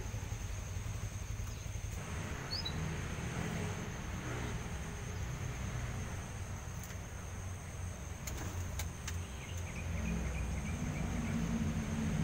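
Steady background noise between a dove's coos: a low rumble with a steady high-pitched whine running over it, one short bird chirp about two and a half seconds in, and a few faint clicks a little past the middle.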